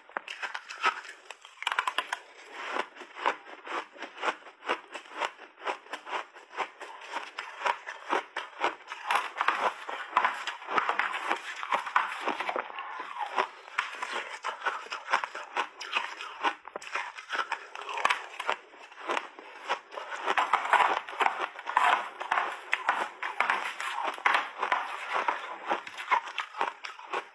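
Close-miked chewing of crushed refrozen mixed-berry ice, a dense run of crisp crunching crackles.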